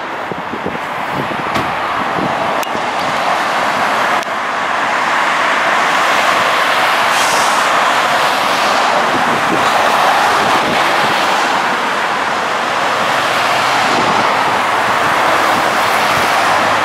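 Steady road-traffic noise from cars passing on a busy multi-lane street, swelling over the first few seconds and then holding. It is mixed with a New Flyer XDE60 articulated diesel-electric hybrid city bus pulling away from a stop across the road.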